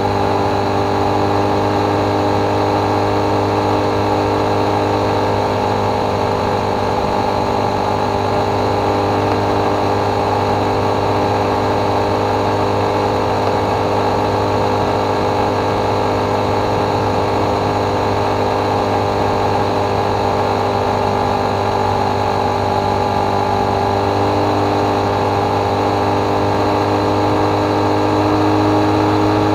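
Motorcycle engine running steadily at highway cruising speed, a constant hum with several held tones. It gets slightly louder near the end.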